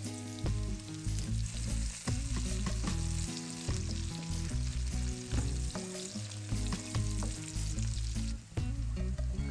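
Diced onion sizzling as it fries in hot fat in a nonstick frying pan, with a wooden spatula stirring and scraping it, and short knocks as the spatula hits the pan. Low background music plays underneath.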